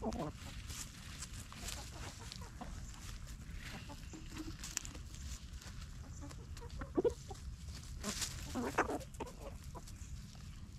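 Chickens clucking as they forage: short clucks at the start, about seven seconds in, and a cluster just before nine seconds, over light scratching and rustling in dry leaf litter.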